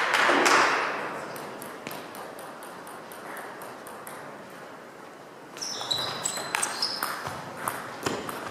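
Table tennis ball clicks in a sports hall, with short high squeaks from shoes on the floor in the second half. A brief swell of crowd noise comes at the start.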